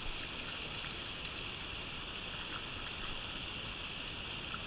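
Steady rushing of moving water, an even hiss with no change in level.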